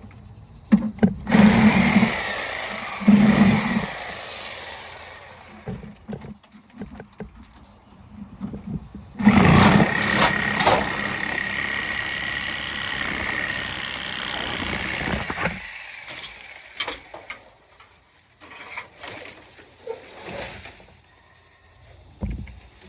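A power saw cutting through small tree trunks at the top. It runs in two short surges, then makes one longer cut of about six seconds, followed by scattered knocks.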